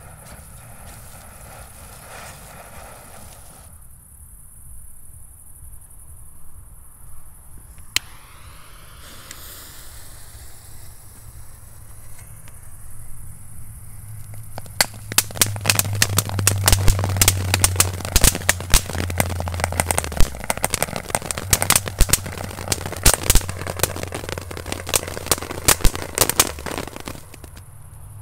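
Category 1 consumer firework crackling: after a single sharp pop, a dense run of rapid crackles starts about halfway through and stops shortly before the end.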